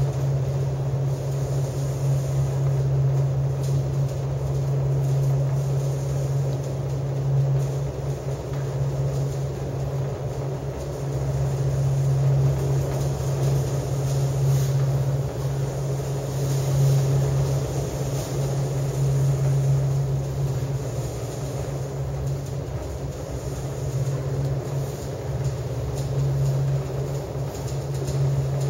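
Aerial tramway cabin running along its track ropes, heard from inside the cabin: a steady low hum and rumble that gently swells and eases.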